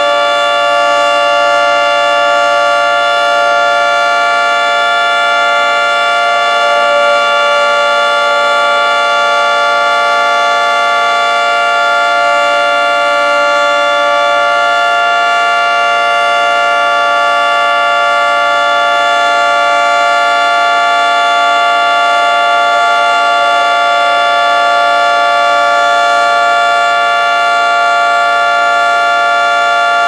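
Federal Signal 2T22 outdoor warning siren sounding its steady alert signal: a loud, held chord of tones that neither rises nor falls.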